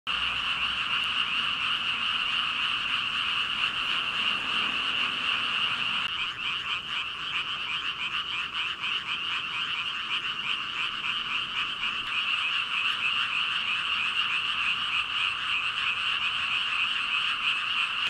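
A dense chorus of thousands of frogs croaking at once, loud and continuous, its rapid pulsing growing more distinct about six seconds in.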